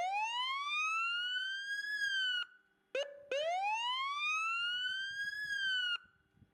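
Emergency vehicle siren giving two rising wails. Each climbs steadily in pitch for about two seconds, dips a little and then cuts off sharply. A short blip comes between the two wails, about three seconds in.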